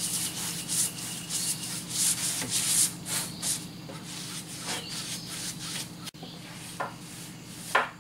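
Paintbrush strokes spreading polyurethane over a wooden workbench surface: a quick run of swishing, scratchy strokes, busiest in the first few seconds and fainter afterwards. Near the end there are two short knocks.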